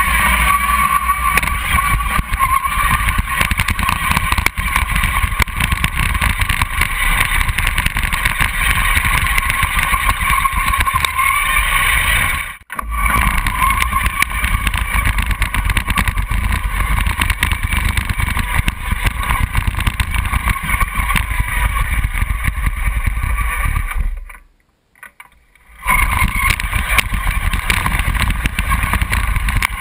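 Homemade radio-controlled tracked vehicle driving over sand, heard from on board: a steady drive whine over a dense rumble and rattle from the tracks and running gear. The sound cuts out for an instant about twelve seconds in, and for about a second and a half near twenty-five seconds.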